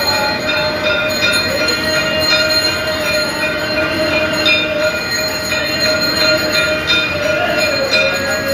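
Temple bells ringing continuously for aarti, a dense clangor of several steady ringing tones with a wavering tone that dips lower near the end.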